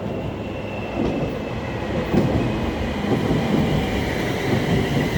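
Electric multiple unit, two coupled class 350 Desiro sets, running along the platform: a steady rumble with wheels clattering over rail joints, getting louder about a second in, and a faint high whine above it.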